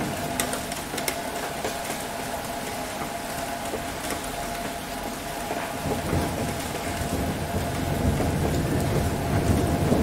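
Steady rain, with a couple of sharp drip ticks about a second in. A low rumble of thunder builds and grows louder from about six seconds in.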